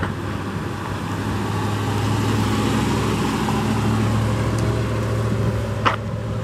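Ram 1500 pickup's 5.7-litre HEMI V8 running at low speed as the truck drives past, a steady low engine hum that grows louder as it comes close and eases off as it pulls away. A brief sharp click near the end.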